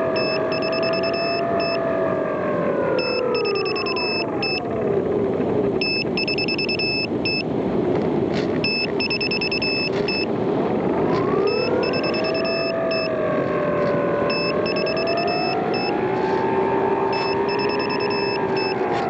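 A radio-controlled model airplane's motor drones as it flies about. Its pitch slides down about four seconds in, climbs again about eleven seconds in, and slides down once more near the end. Short trains of high-pitched beeps repeat throughout.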